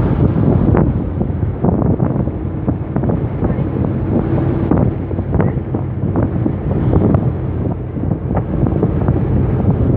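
Wind buffeting the phone's microphone inside a moving car, over a steady low road rumble, with frequent short knocks and pops.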